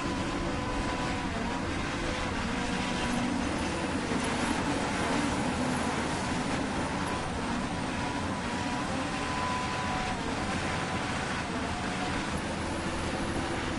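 Hydraulic pump of a CAT 336-style RC excavator running with a steady whine while the boom and ripper work hard, rocky soil.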